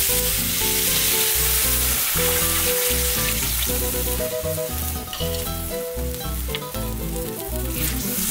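Fried meats and chorizo sizzling in a hot pan as boiling water is poured in, then stirred with a wooden spoon; the sizzle is strongest in the first half. Background music with a steady bass plays underneath.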